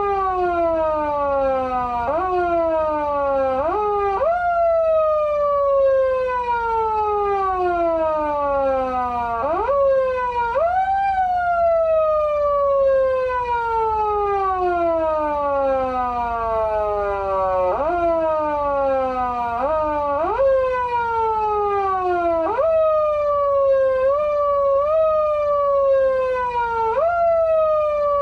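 Electronic foot siren from an SAP-500BK-PV siren amplifier, imitating a motor siren. Its wail slowly winds down in pitch and is kicked sharply back up each time the pedal is pressed, several times over, sometimes in quick double jabs.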